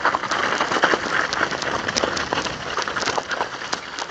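Mountain bike tyres crunching over icy, crusted snow: a dense, steady crackle full of quick sharp clicks.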